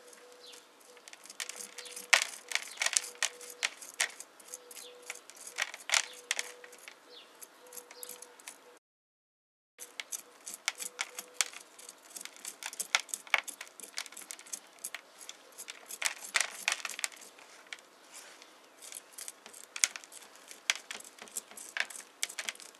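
Rapid, irregular clicks and crackles of hands working a ficus bonsai's root ball loose in its nursery pot: soil and roots crumbling and shifting. The sound drops out completely for about a second a little before halfway.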